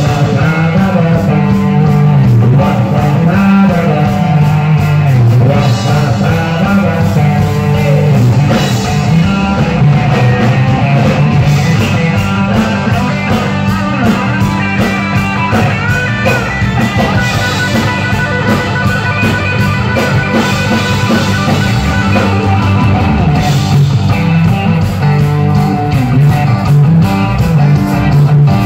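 Live rock band playing: electric guitars, bass guitar and drum kit, with a male lead vocal in parts, loud and continuous.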